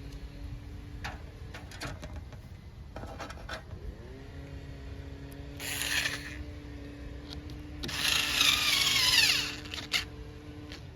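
A power tool's motor running, spinning up about four seconds in, with louder harsh stretches around six seconds and again from eight to nine seconds, among scattered clicks.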